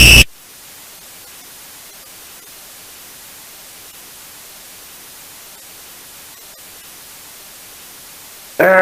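Steady static hiss, after a loud high-pitched alarm tone cuts off a moment in. Just before the end a loud voice breaks in.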